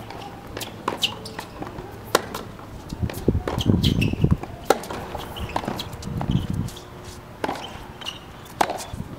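Tennis rally on an outdoor hard court: a series of sharp, irregular knocks as the ball is struck by the rackets and bounces on the court.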